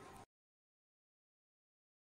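Near silence: faint background ambience cuts off suddenly a quarter second in, leaving complete digital silence.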